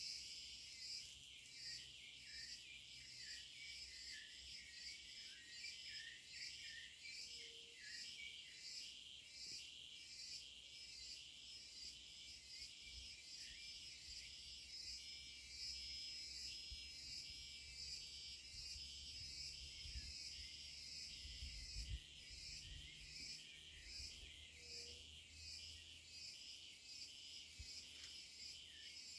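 Insects chirping in a faint, steady pulsing chorus, with a low rumble briefly around twenty seconds in.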